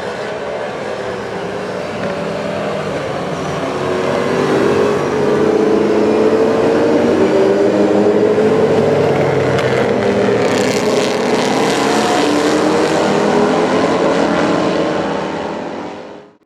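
V8 racing saloon cars at full race pace, engine note building as they approach and pitch sliding downward as they go by. The sound cuts off abruptly near the end.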